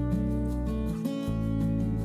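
Background music: an acoustic guitar piece with a held bass line, changing chord about a second in.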